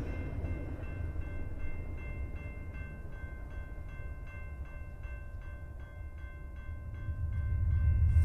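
Railroad grade-crossing signal bell dinging steadily, about two strikes a second, over a low rumble from the departing freight train that swells again near the end.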